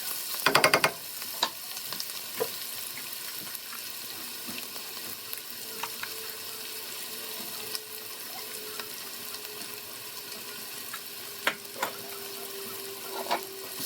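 Chopped onion and spices frying in oil in a pan, a steady sizzle. A spoon stirs and scrapes against the pan in a quick run about half a second in, then clinks now and then.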